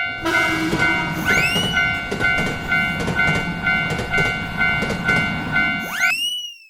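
Japanese railroad crossing alarm bell ringing about twice a second over the loud rumble of a passing train, with a rising horn blast about a second in and another near the end. All of it stops abruptly near the end.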